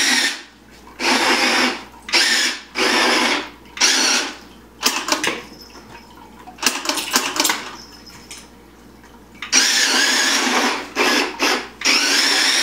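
Electric drive motors of a Nerf remote-control Badger tank toy whining as it drives on its plastic treads. It runs in short bursts of a second or so, starting and stopping about ten times.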